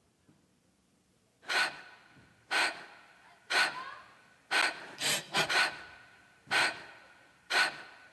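A person gasping for air: eight sharp gasps about a second apart, starting about a second and a half in, with three quicker ones together around the middle.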